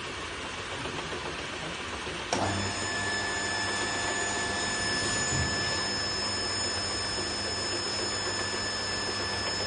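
Bottle shrink steam tunnel machine running with a steady hiss. About two seconds in, something switches on with a click, and a low hum and steady high-pitched whines join the noise.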